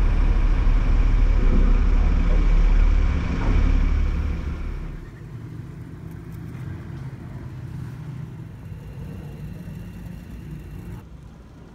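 Loud low rumble of engines on a car ferry's vehicle deck for about five seconds. Then it drops suddenly to a much quieter, steady low hiss of a portable gas canister camping stove heating a pot of water.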